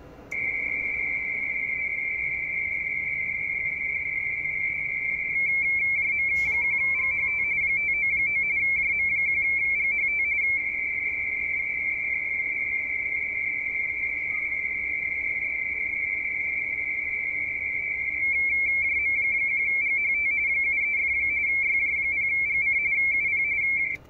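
Radioteletype (RTTY) signal from an Icom IC-7600 transceiver's speaker: a high, steady warbling tone as the 170 Hz-shift two-tone signal keys between its mark and space notes, carrying text that the rig decodes on screen. It steps louder about five seconds in and again near eighteen seconds, and a click with a short sliding chirp comes about six seconds in.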